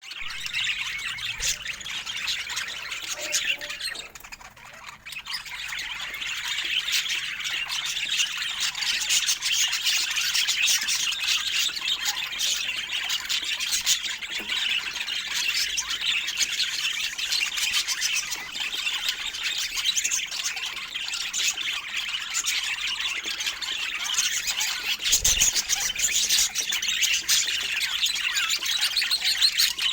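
Budgerigars chattering and squawking continuously, several birds at once, with a brief lull about four seconds in.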